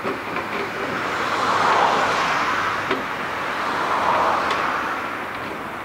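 Boeing 747-8's four GEnx turbofan engines running as the airliner rolls past on the ground. The noise swells twice, about two and four seconds in, then eases off.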